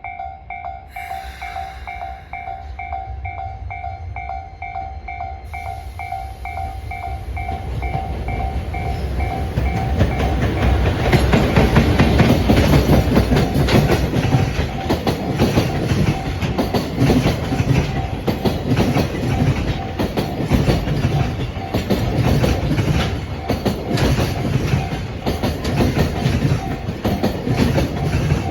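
Level-crossing warning bell ringing in an even pulse about twice a second, then a JR Freight EF210-300 electric locomotive and a long train of container wagons approach and pass. The train grows loud about ten seconds in, its wheels clattering steadily over the rail joints and drowning out the bell.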